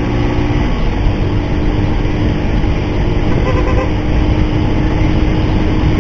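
Motorcycle riding at road speed, heard through an action camera's microphone: heavy wind rumble on the microphone over a steady engine note. A short horn toot sounds about three and a half seconds in.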